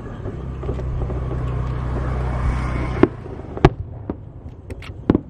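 A steady low motor rumble for about three seconds, then it stops. Several sharp firework bangs follow, the loudest about a second after the rumble ends.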